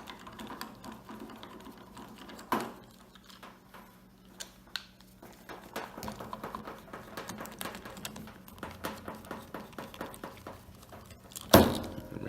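Small clicks and scrapes of a Phillips screwdriver backing out the two screws of an Oster 76 clipper's switch cap, with a sharper click about two and a half seconds in and a loud knock near the end.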